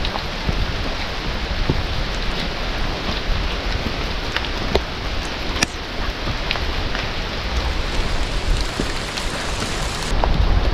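Steady rain falling through a forest, with many sharp drop ticks. At the very end a low rumble of wind on the microphone comes in.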